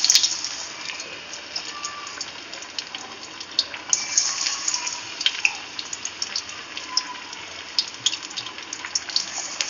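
Patties of pearl-millet-flour and minced-mutton batter frying in hot oil in a kadai: a steady sizzling hiss with scattered crackles. It is loudest right at the start, as a patty is dropped in, then settles to an even sizzle.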